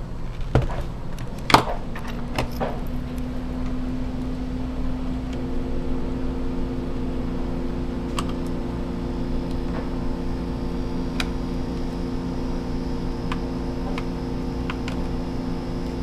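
Clicks and taps from handling the parts of an opened laptop, its logic board and fan area, with the sharpest click about one and a half seconds in and a few faint ticks later. Under them, a steady hum comes in about two seconds in and takes on several more steady tones a few seconds later.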